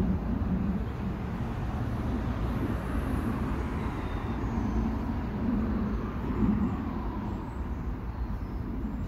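Steady rumble of road traffic, swelling a few times as vehicles pass.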